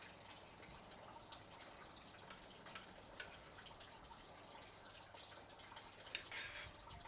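Faint dripping water and a few light clicks as blanched snapping-turtle pieces are lifted out of their blanching water; a short splashy rustle comes near the end.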